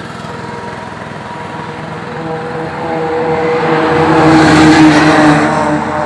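A truck passing on the highway, its engine and tyre noise growing louder from about two seconds in, peaking near the five-second mark and then beginning to fade.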